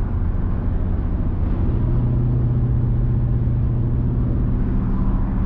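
Steady drone of a car on the road: engine and tyre noise with a constant low hum.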